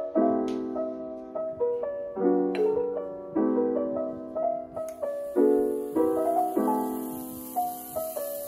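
Background piano music: soft chords struck about once a second, each left to fade.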